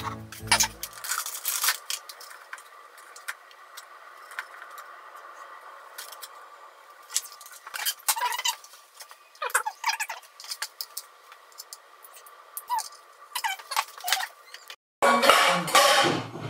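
Kitchen handling sounds: scattered clicks and knocks of ceramic dishes and utensils being picked up and set down on a counter, over a faint steady hum. After a brief break near the end comes a louder, busier clatter.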